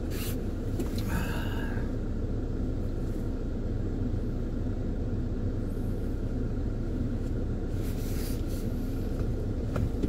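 Steady low rumble of a car's engine and cabin, heard from inside the car as it sits still or creeps along.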